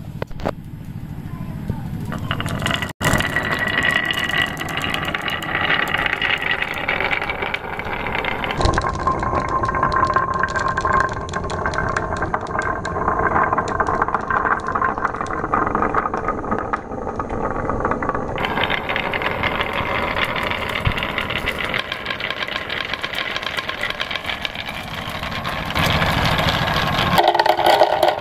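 Many marbles rolling and clattering along grooved wooden marble-run rails: a continuous rumble full of rapid clicks as they knock against each other and the wood. Near the end the sound turns louder and brighter as marbles run into a clear plastic jar.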